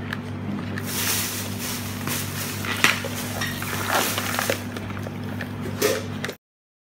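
Live Dungeness crabs being handled in a plastic basin: their hard shells and legs scrape and clack against each other and the basin, with several sharp clicks, over a steady low hum. The sound cuts off suddenly near the end.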